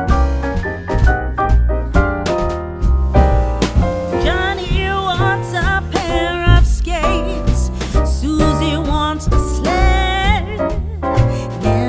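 Background music: keyboard chords over a steady low beat, with a wavering melody line coming in about four seconds in and dropping out near the end.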